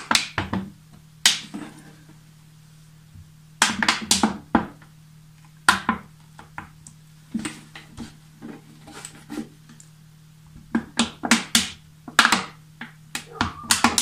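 Thin plastic water jug crinkling and knocking as it is handled and pressed against the hot socket of a plastic pipe welding machine to melt small holes in its side. Sharp crackles come in clusters, thickest near the end, with quiet gaps between, over a low steady hum.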